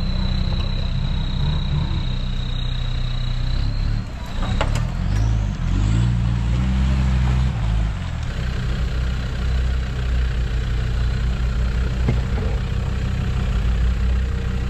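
Land Rover Discovery TD5's five-cylinder turbodiesel engine running as the 4x4 pulls through deep muddy ruts. Its pitch rises and falls for a few seconds near the middle, then settles to a steadier low drone.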